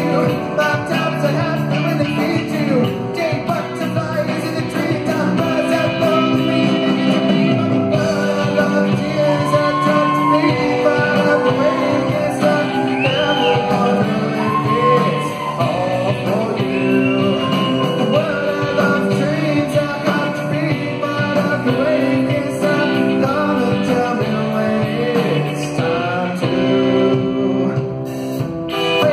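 Live rock band playing loud and steady, with drums, electric guitars and keyboards, and a singer's voice over the music.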